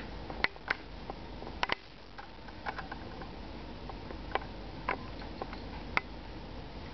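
Scattered short clicks and taps, about ten over several seconds, from two dogs shifting about during a lull in rough play.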